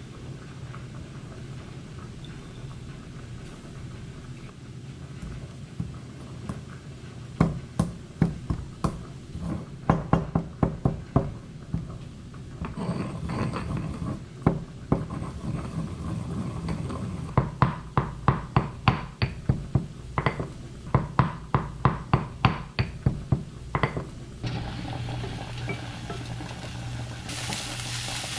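Stone pestle pounding in a granite mortar: runs of sharp knocks, several a second, with short pauses between runs. Near the end it gives way to a steady hum and the sizzle of onions frying in a pan.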